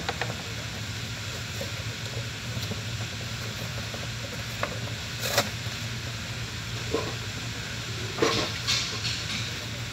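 Steady low hum and even hiss, with a handful of light clicks and clinks scattered through the second half, the loudest a little past the middle and near the end.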